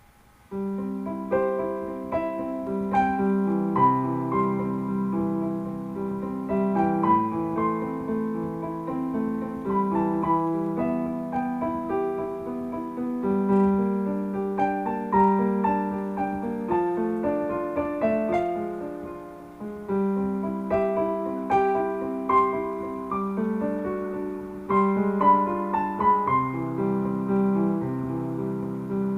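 Background piano music, a steady sequence of notes and chords.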